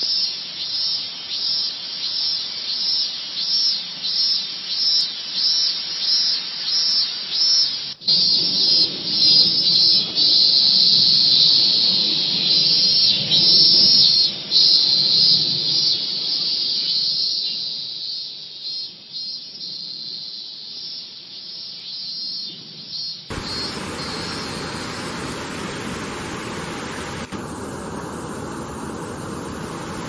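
A cicada singing high and loud, in pulses about twice a second, then a continuous buzz for several seconds, then pulsing again. A little over three-quarters of the way through it cuts suddenly to the steady rush of Minoo Falls.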